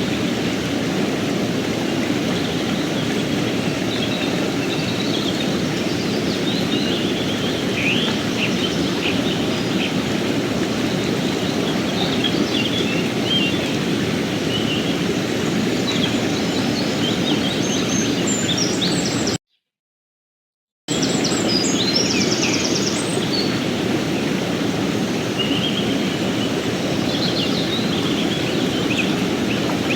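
Steady rushing of a mountain stream, with small birds chirping in short bursts above it. Just past the middle the sound cuts out completely for about a second and a half, then resumes.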